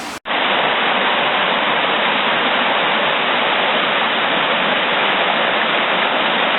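Waterfall rushing, a loud steady wash of falling water that cuts in abruptly just after the start.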